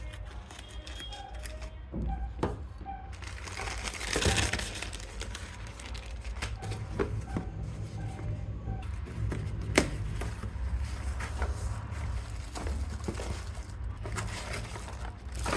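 Hands opening packaging: crinkling and tearing of wrapping with scattered clicks and taps, over a steady low hum.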